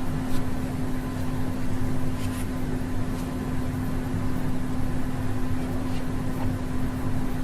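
Steady low hum with one constant tone, with a few faint, short high sounds over it.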